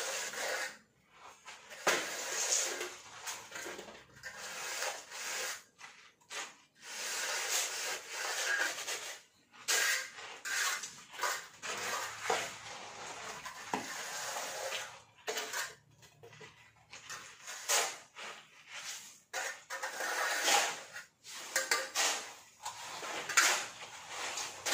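Scraping and rasping of a straight screed bar and hand tools dragged over wet sand-and-cement mortar while levelling a floor, in irregular strokes with short pauses between them.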